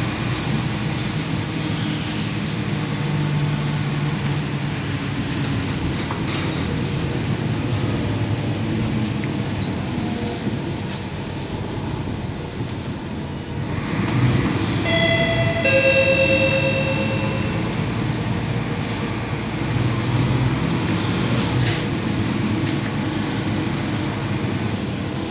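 Cabin noise inside a moving Mercedes-Benz OC500LE bus: steady engine and road noise. About halfway through, a short two-note electronic chime sounds, the second note lower than the first.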